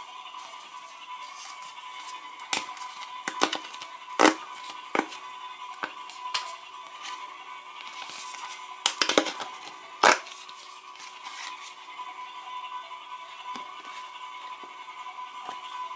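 Paper sticker packet being torn open and its sticker sheet handled: a string of sharp crackles and crinkles from about two and a half to ten seconds in, the loudest about four seconds in and near ten seconds.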